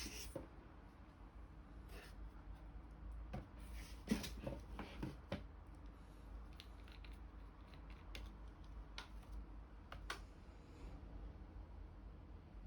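Scattered light clicks and taps of small objects being handled, with a busier cluster about four to five and a half seconds in, over a faint steady low hum.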